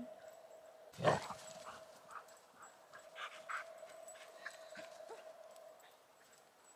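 A dog gives one short bark about a second in. After it there are only faint, scattered sounds of the dogs moving, over a steady faint hum.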